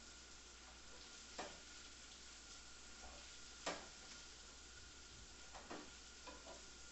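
Shredded kale being stirred in a frying pan with sausage and bacon: a faint steady sizzle, with a utensil knocking against the pan about four times, the loudest about halfway through.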